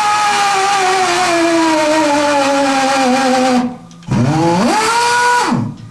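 Powered tube roller expanding a boiler tube into the tube sheet: its motor runs with a pitch that sinks steadily as it slows under load, stops, then spins up again quickly, holds briefly and cuts off.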